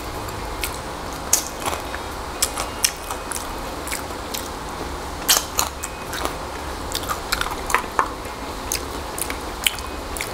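Close-miked eating sounds of someone chewing dried fish and fried shirataki rice: irregular sharp clicks, crunches and lip smacks, over a steady low hum.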